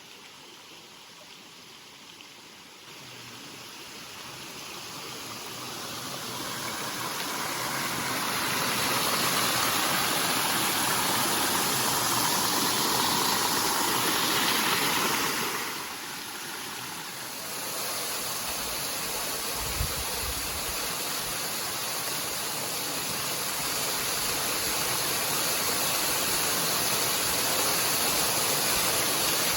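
Waterfall: a steady rush of falling water, growing louder over the first several seconds, dropping briefly about halfway through, then steady again.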